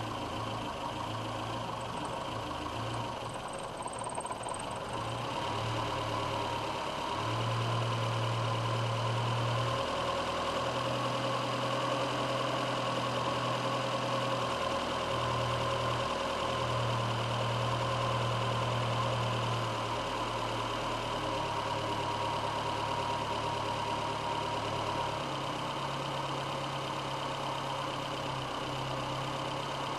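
VW Rabbit's four-cylinder CIS-Lambda engine idling with the mixture far out of adjustment, its idle speed shifting up and down several times as the mixture is turned.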